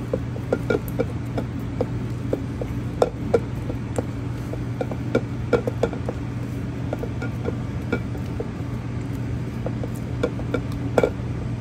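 A spatula stirring thick choux dough in a stainless steel bowl: irregular scrapes and light taps against the metal, a few a second, over a steady low hum.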